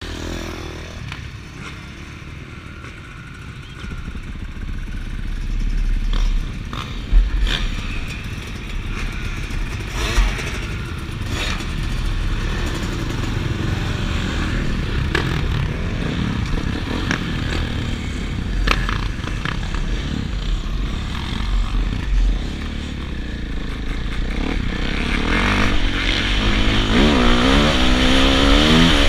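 Several motocross dirt bike engines idling and running at low revs, with occasional knocks. Near the end one bike revs up and accelerates away, its pitch rising and falling through the gears.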